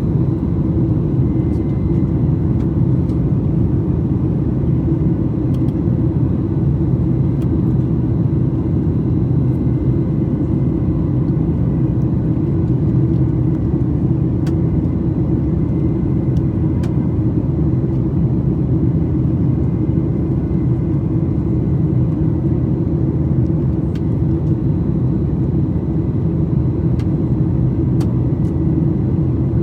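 Steady cabin rumble of a Boeing 737 MAX 8 heard from a window seat: engine and cabin noise, deep and unchanging, with faint steady high tones over it.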